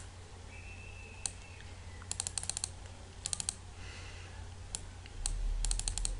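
Computer mouse clicking, mostly in quick runs of several clicks, over a faint steady hum. A low rumble comes up about five seconds in.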